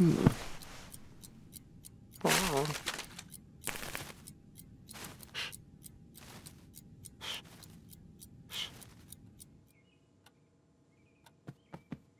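A sick man's voice: a sudden sharp burst, then a falling groan, then slow breathy breaths every second or two, with small rustling clicks in between. It goes quiet near the end, with a few faint chirps.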